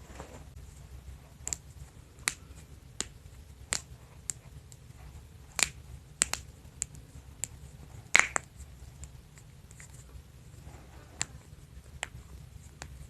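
A person's joints cracking: about fifteen sharp pops at irregular spacing, the loudest a close double pop just past the middle.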